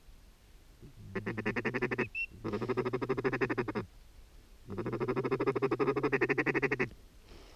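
A mallard duck call blown in three long runs of rapid, evenly spaced notes at a steady pitch, the feeding-chatter style of calling, to work ducks that are circling without landing.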